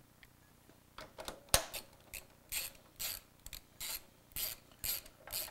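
Hand ratchet wrench clicking in repeated strokes, about two a second, starting about a second in, as it tightens the lower shock mount bolt on a Honda CRF450R motocross bike.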